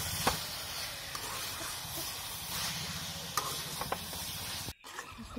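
Raw chicken pieces sizzling in hot oil and onion-tomato masala in an aluminium kadai, stirred with a metal slotted spoon, with a few light clicks of the spoon against the pan. The sound cuts out briefly near the end.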